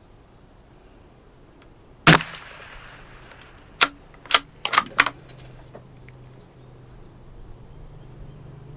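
A Savage FV .22 LR bolt-action rifle fires a single sharp shot about two seconds in, with a short echo after it. About a second and a half later come four quick sharp clicks within little more than a second, the bolt being worked to chamber the next round.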